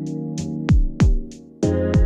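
Background music with an electronic beat: deep kick drums that drop in pitch and a steady hi-hat tick over held synth chords. The music thins out briefly, then comes back fuller about a second and a half in.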